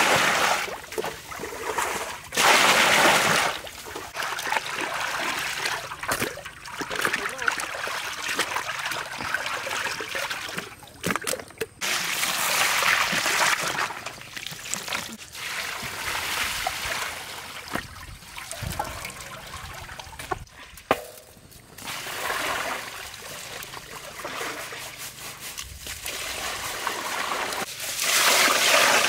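Water poured from a bowl splashing into a large metal basin, on and off, with hands sloshing raw chicken and then rice in the water. The louder pours come a couple of seconds in, around the middle and near the end.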